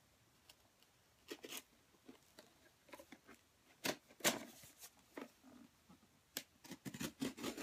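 A sealed cardboard box being cut and pried open by hand: scattered clicks, scrapes and snips, the loudest about four seconds in and coming thicker near the end. The box is hard to open.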